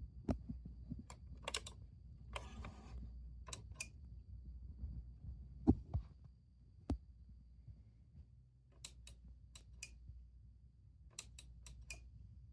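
Irregular sharp clicks and light taps, like small objects or buttons being handled, with a short rustle about two seconds in. A faint steady high whine and a low hum sit underneath.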